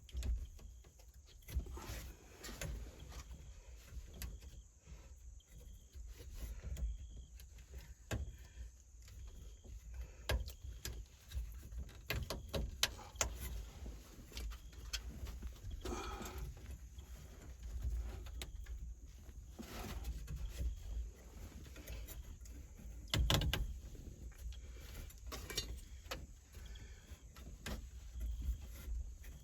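Scattered light clicks, taps and rustles of hand work in a pickup's steering column as the turn signal switch wire is fed through, with a few louder knocks, over a low steady rumble.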